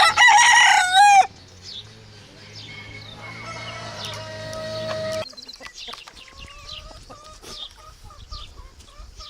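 A rooster crows loudly, the call ending in a falling glide a little over a second in. A steady droning tone follows and cuts off abruptly about five seconds in. After that come short, scattered chicken clucks and chirps.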